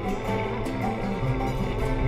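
Background music led by plucked guitar, with held notes changing every fraction of a second over a steady low bass.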